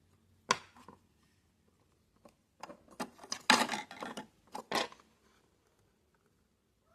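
Clicks and light knocks of hard plastic printer parts being handled and fitted: one sharp click about half a second in, then a rapid cluster of clicks and clatter a couple of seconds later.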